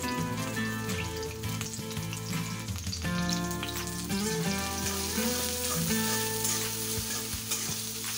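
Sliced onions and green chilies sizzling in hot oil in a karahi, stirred with a metal spatula, with background music playing.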